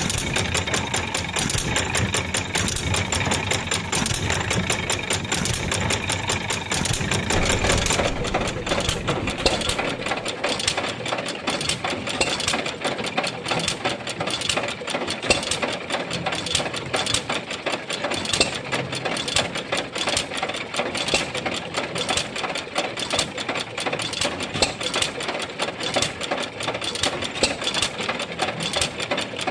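A 3/4 HP Bluffton hit-and-miss stationary engine running and driving a wooden washing machine: a fast, steady mechanical clatter. About eight seconds in, the deep low rumble drops away and the clatter goes on lighter.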